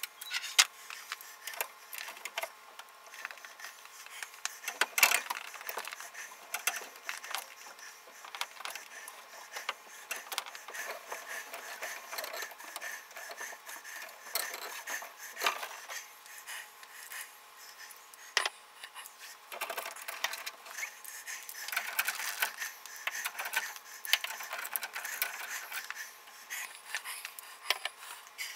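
Hands working a threaded PVC fitting loose from a leaking copper pipe joint: irregular clicks, knocks and rubbing scrapes of plastic and metal being gripped and turned, with louder bunches of clicks scattered throughout.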